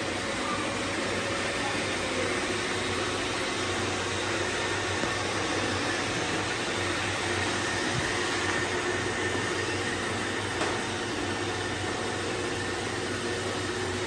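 Several robot vacuums, iRobot Roombas among them, running together: a steady whir of suction motors and brushes with a faint high whine.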